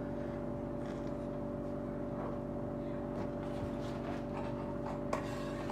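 Steady background hum of a running motor or appliance, a drone with several held tones, with a faint click about five seconds in.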